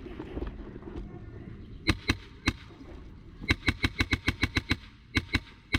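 Airsoft guns firing: three single shots about two seconds in, then a rapid burst of about ten shots at roughly nine a second, then a few more single shots near the end.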